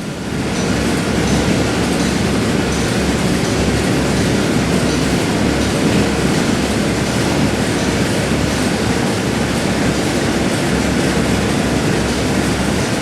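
Steady, loud rumbling noise of heat-treatment furnace plant machinery running, with faint regular ticking over it.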